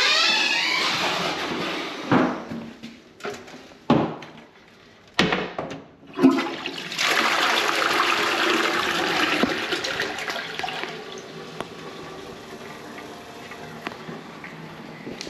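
A toilet flushing: a loud rush of water begins about seven seconds in and eases to a quieter steady refill trickle. Several sharp knocks and thuds come before it.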